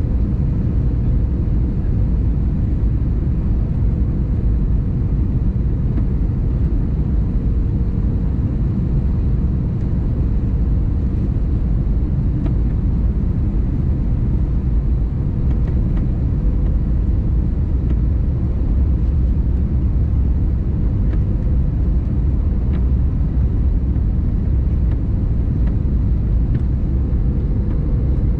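Steady cabin rumble inside an Airbus A321neo airliner, engine and airflow noise, with a faint steady hum above it.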